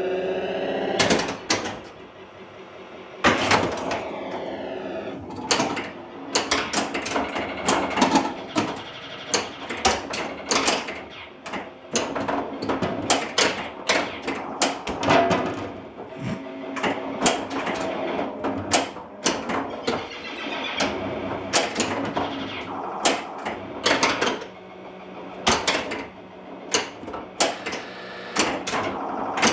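Williams Firepower pinball machine in play: a rapid, irregular clatter of flippers, bumpers and solenoids firing, over the game's electronic sound effects, including falling pitch sweeps a few seconds in.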